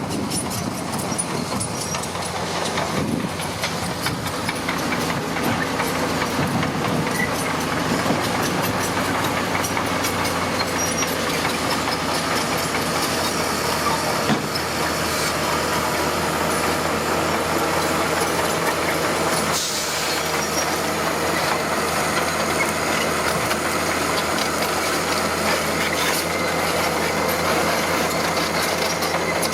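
Bulldozer's diesel engine running steadily under load, with a short sharp knock about fourteen seconds in.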